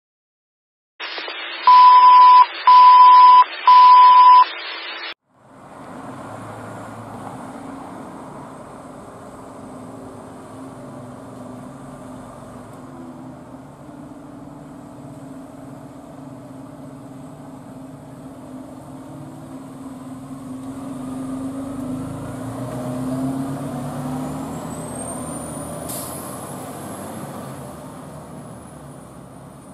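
Three loud, steady beeps over a hiss of static, like a station alert tone. Then the diesel engine of a Pierce fire engine runs steadily, growing louder about two-thirds of the way through as the engine pulls out, with a faint high whine near the end.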